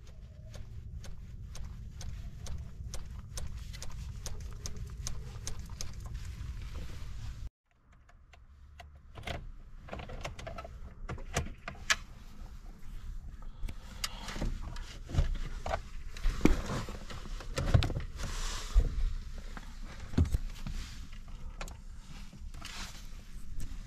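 Hand priming lever on a Łada 2105's mechanical fuel pump being worked, a run of light clicks over a low rumble, to prime the carburettor before a cold start. Then, after a sudden break about seven and a half seconds in, irregular clicks, knocks and jangling keys as the ignition key and cabin controls are handled, with the engine not yet running.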